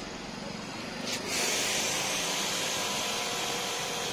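Aimex D2100 high-pressure washer: about a second in, the jet comes on and water sprays against a van's rear with a steady hiss, while the washer's pump motor hums underneath.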